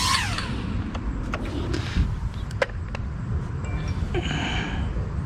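A Sanrock U61W mini quadcopter's motors and propellers whining, then spinning down with a quickly falling pitch at the very start. After that comes low wind noise on the microphone with a few sharp clicks.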